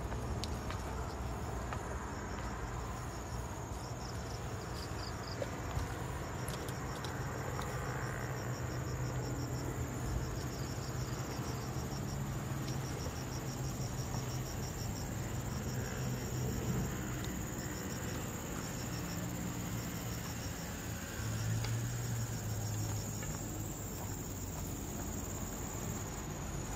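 Insects chirping in the forest: repeated trains of rapid high chirps over a steady high-pitched whine, with a low steady hum underneath.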